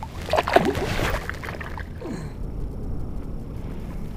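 Brief splashing and gurgling of water in the first second and a half, loudest about half a second in, as a bass is let go from the hand back into the lake. A steady low rush of wind and water follows.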